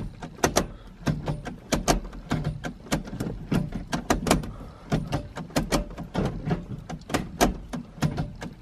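Gear lever of a Toyota AW11 MR2 with a newly fitted Jon0 short shifter being worked through the gears. It makes an irregular run of sharp clicks and clunks, about three a second.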